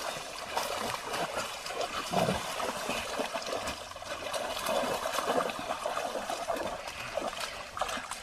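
Two standard poodles splashing as they wade and run through a shallow rocky creek, with irregular splashes over the running water.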